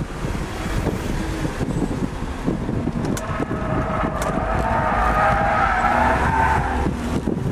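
BMW E36 M3's straight-six engine pulling hard under load, heard from inside the cabin, with the tyres squealing as the car slides through a corner from about three seconds in until shortly before the end.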